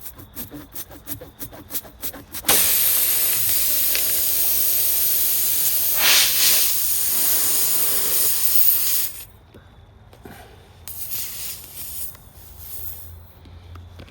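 A quick run of clicks, then a loud hiss of compressed air rushing through a car tyre's puncture-repair work. The hiss starts suddenly about two and a half seconds in, lasts some seven seconds and cuts off abruptly.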